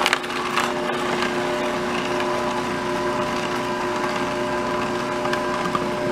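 Electric juicer running steadily, its motor giving a constant hum over the grinding noise of carrot and fruit pieces being juiced, with a few sharp clicks in the first second or so.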